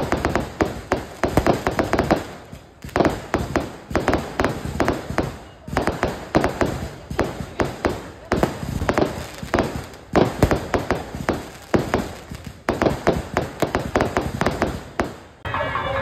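Fireworks display going off: aerial shells bursting in rapid volleys of cracks and bangs. The volleys come one after another with short lulls about three, six and thirteen seconds in.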